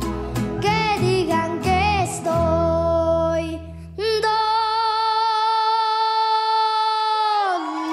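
A young boy singing a mariachi song with a mariachi band of violins, trumpets and guitars. About halfway through he holds one long note, which falls away at the end while the bass drops out beneath it.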